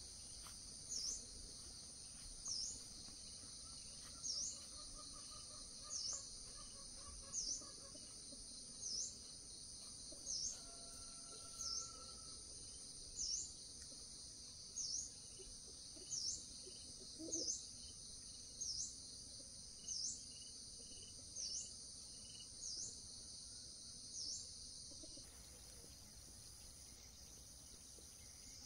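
Faint rural ambience: a steady high insect drone with a bird repeating a short high call, a quick dip and rise in pitch, about every second and a half. About 25 s in, the drone and the calls cut off abruptly.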